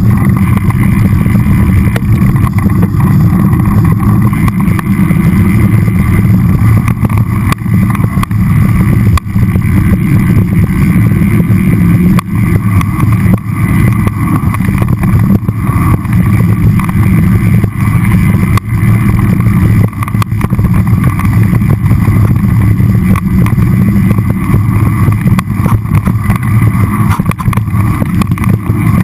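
Mountain bike descending a dirt singletrack trail: a loud, steady rumble of tyres on packed dirt and the bike's frame shaking over bumps, with many small knocks from rocks and ruts and wind against the microphone.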